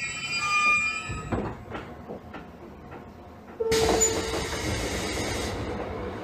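JR Kyushu 813 series electric train standing at a station. A tune dies away about a second in and a few soft knocks follow. About three and a half seconds in a loud hiss starts suddenly and lasts nearly two seconds, leaving a steady hum.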